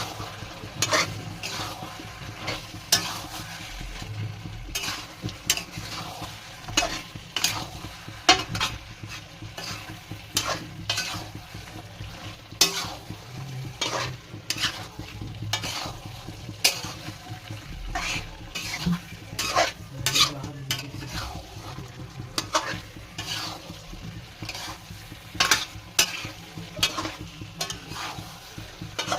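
A spoon or spatula stirring food frying in a pan: repeated scrapes and clinks against the pan, irregularly about a second apart, over a steady sizzle.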